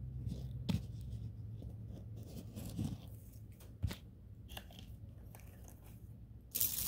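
Jewellery being handled on a cloth-covered table: scattered faint clicks and taps of beads and metal pieces. Near the end a loud burst of crinkling plastic, as an item comes out of its plastic bag.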